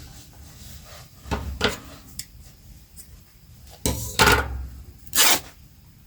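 Handling noises of fabric and objects being rubbed and moved: three short rubbing, scraping bursts, the loudest about four seconds in.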